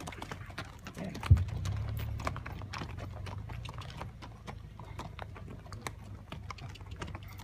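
Horses walking, hooves clip-clopping unevenly on sandy desert ground, with one loud thump about a second and a half in.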